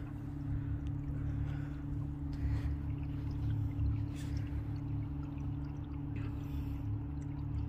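Small boat's motor running steadily at low speed, a constant low hum, with water trickling and splashing against the hull.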